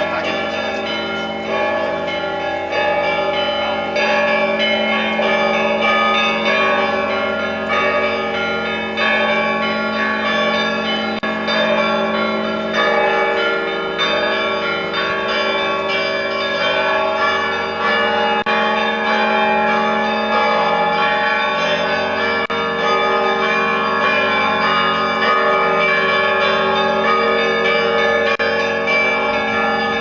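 Russian Orthodox church bells ringing (kolokolny zvon): several bells of different pitch struck in a dense, continuous peal, their tones ringing on over one another.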